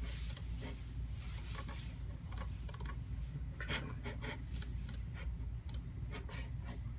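Computer keyboard keys clicking in irregular clusters over a steady low hum.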